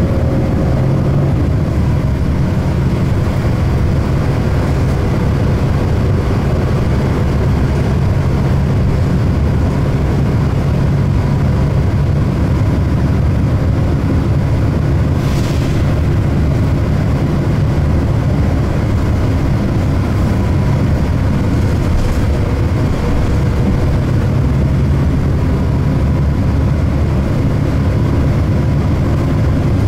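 Orion VII third-generation CNG transit bus heard from inside while under way: a steady low engine and road rumble with faint whining tones above it. A brief hiss comes about halfway through.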